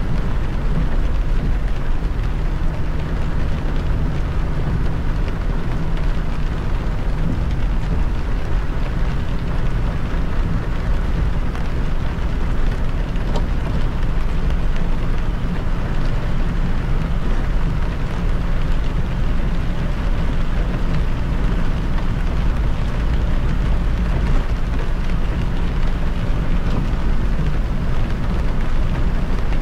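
A car driving on a rain-soaked expressway: a steady low rumble of tyres and engine, with the hiss of rain and spray and a few faint ticks of drops.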